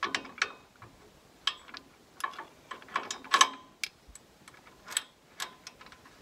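Sharp metallic clicks and clinks at irregular intervals, some with a brief ring: steel hardware of a hydraulic top link knocking and being worked with a hand tool as it is fitted to a tractor's three-point hitch.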